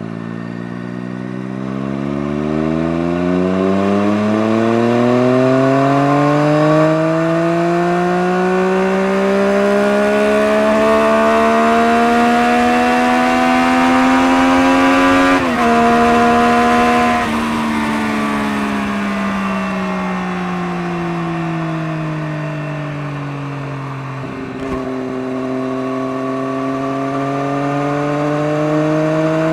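Motorcycle engine running through a Scorpion aftermarket exhaust, its pitch climbing steadily for about fifteen seconds under acceleration, briefly dropping, then falling away as it slows before climbing again after a short click near the end.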